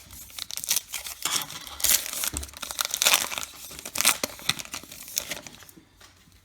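Baseball card pack wrapper crinkling as it is torn open and crumpled, in a run of irregular crackles that die away near the end.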